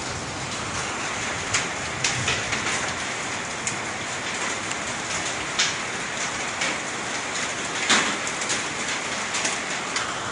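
Steady patter of volcanic mud rain mixed with small stones falling, with several sharper hits standing out, the loudest about 8 seconds in.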